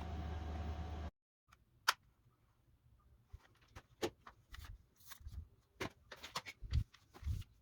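A steady hum cuts off abruptly about a second in. Irregular sharp clicks and a few dull knocks follow, as of something being handled.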